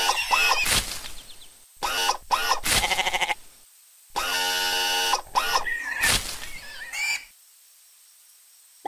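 Cartoon animal voices: a run of short bleat-like calls with wavering pitch, and a steadier held call about four seconds in. They stop about seven seconds in.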